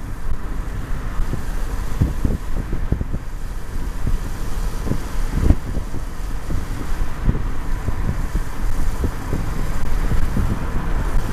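Car driving along a road: steady engine and road noise, with wind buffeting the microphone in irregular low thumps.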